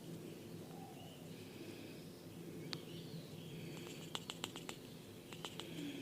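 Sharp clicks over a steady low hum: a single click a little before halfway, a quick run of about six clicks around two thirds of the way in, then three more near the end.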